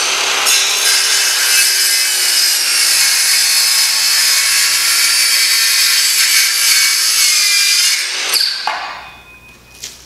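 Handheld circular saw cutting across a timber board, running steadily under load through the cut, then winding down after about eight seconds.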